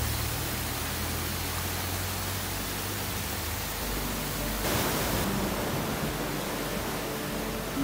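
Small stream running and splashing over rocks, a steady rushing noise. About five seconds in it gives way to surf washing up a sand beach.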